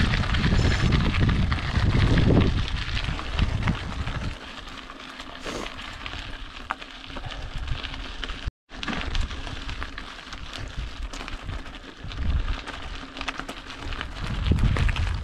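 Mountain bike tyres crunching over a loose gravel track, a steady crackle of small stones, with wind gusting on the microphone, heaviest in the first couple of seconds. The sound breaks off for a moment about halfway through.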